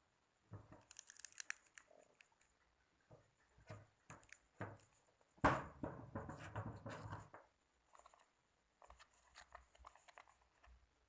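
Close handling sounds of slime-making: light clicks, taps and rustles as ingredients and containers are worked by hand. About five and a half seconds in, a louder rough, sticky-sounding noise starts sharply and lasts about two seconds.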